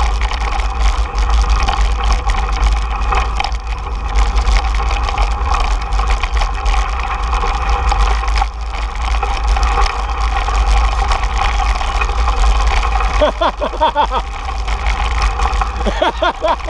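Wind buffeting a bicycle-mounted camera's microphone while riding, with a steady rumble and tyre noise from rolling over the lot's surface. A few short pitched calls come twice, about two thirds through and near the end.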